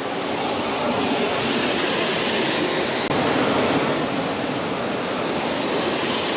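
Steady rush of water falling over a 30-foot waterfall, an even, unbroken noise.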